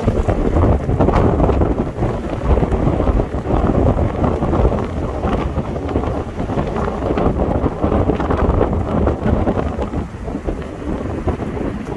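Wind buffeting the microphone of a camera in a moving car: a loud, uneven rumble that surges and eases.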